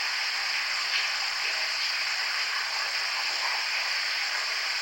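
Steady, even electronic hiss like static, with a few faint high steady tones running through it.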